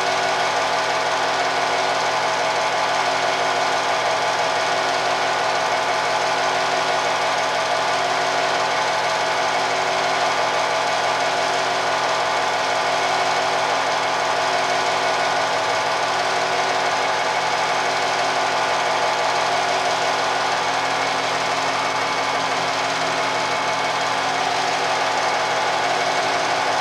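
Film projector running: a steady, rapid mechanical clatter with a constant hum that does not change.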